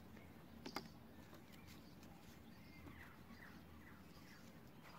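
Near silence: room tone with one light tap a little under a second in and a few faint bird chirps in the background.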